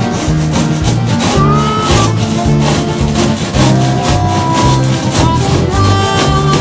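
Background music with a bass line and a steady beat, with the rubbing and scraping of a hand tool taking material off the fiberglass edge of a deck hatch opening beneath it.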